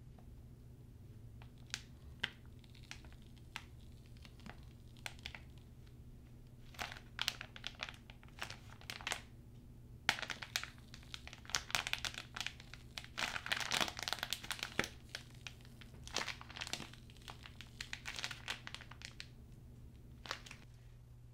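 Plastic piping bag crinkling and crackling in the hand as it is squeezed to pipe out thick slime. Irregular crackles, sparse at first, coming thick and fast about halfway through, then thinning out, over a faint steady low hum.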